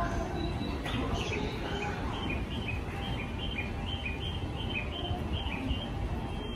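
Bird chirping: a quick run of short chirps alternating between two pitches, about three a second, starting about a second in and stopping near the end, over a steady low rumble of station noise.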